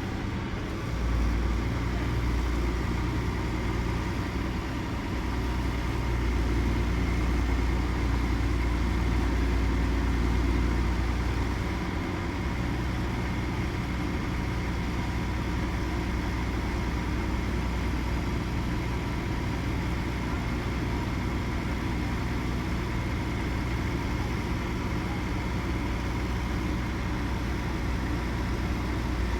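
Diesel engine of heavy farm machinery running steadily, with a deep hum and a steady higher whine. The low hum swells from about a second in and eases back after about twelve seconds.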